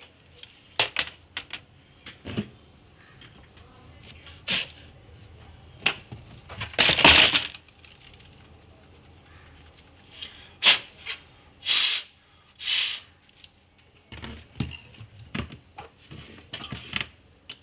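Plastic laptop case parts clattering and knocking as they are handled and set down, with a few short blasts of breath blown onto the fan and heat sink to clear dust from between them.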